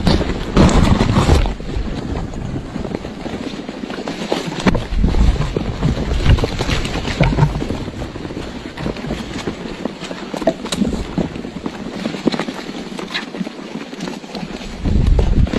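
Wind buffeting the microphone in gusts, with a low rumble that comes and goes, and many small clicks and rustles throughout.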